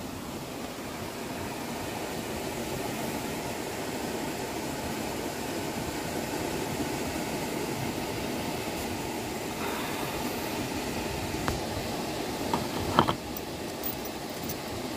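A steady, even rushing noise, growing slightly louder over the first few seconds. Near the end come a few faint clicks and one short, louder knock.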